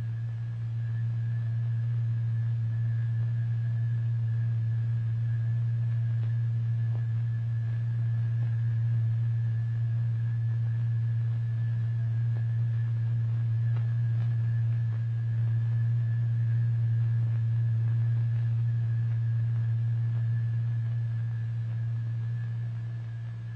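A steady low electronic tone: the sine-wave note that drives the vibrating surface and sets the liquid masses pulsating. A faint high whistle sits above it.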